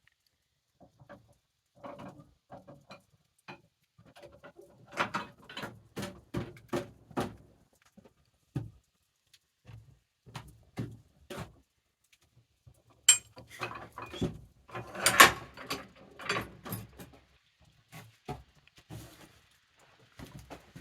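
Irregular knocks and clatter, with a denser burst of louder knocks about thirteen to seventeen seconds in.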